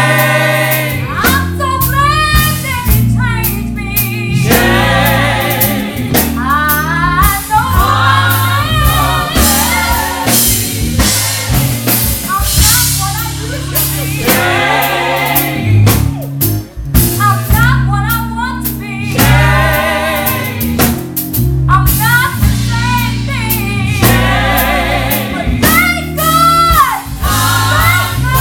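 Live gospel music: a women's vocal group singing into microphones over a band with drums and a low bass line.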